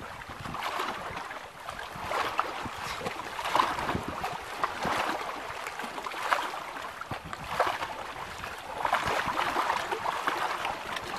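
Small waves lapping and slapping against a boat's hull in uneven surges, with wind gusting on the microphone.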